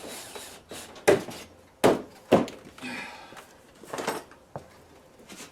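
Plastic front bumper cover of a Toyota Corolla being pushed and tugged into place against the car's front end: three sharp knocks in the first half, then lighter knocks and rubbing.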